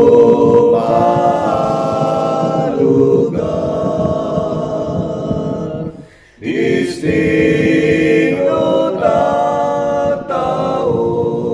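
A man singing a slow Ilocano gospel song a cappella, his own voice layered in several parts like a small choir. The phrases are held long, with a short break between phrases about six seconds in.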